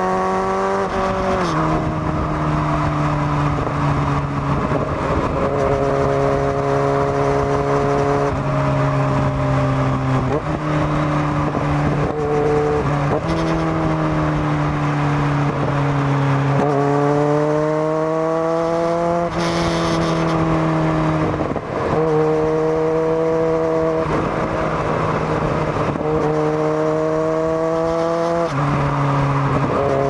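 Kawasaki Z900's inline-four engine through a Zard full exhaust system while being ridden. Its pitch climbs under throttle and drops at shifts or roll-offs several times, with steady stretches of cruising between.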